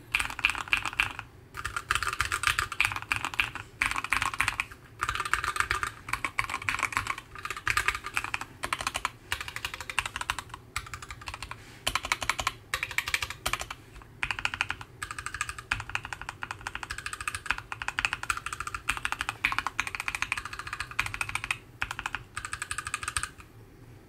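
Fast typing on Keychron Q11 mechanical keyboards: dense keystroke clicks in bursts of a second or two with short pauses between. One board has the masking-tape sound-dampening mod, the other is stock, typed in turn for comparison.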